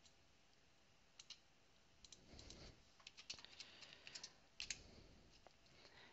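Faint clicks of a computer keyboard: a couple of keystrokes about a second in, then a quick run of keystrokes over the next few seconds as a short word is typed.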